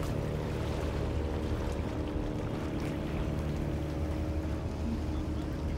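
An engine running steadily with a low hum, its pitch holding level throughout.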